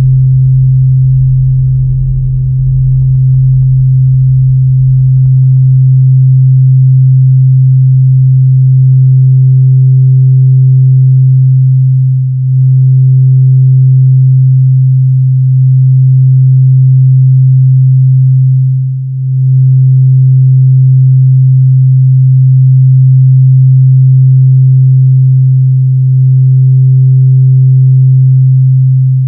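Drone music: a loud, steady, low electronic tone held almost unchanged, with a fainter higher tone above it. It dips briefly a few times, most clearly about twelve and nineteen seconds in.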